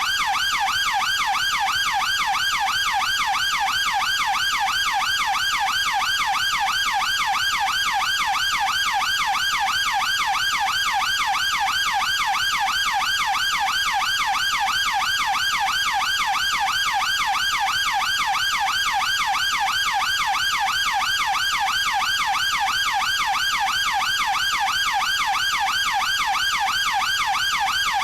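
British police siren in a fast yelp, its pitch sweeping up and down several times a second, steady and unbroken.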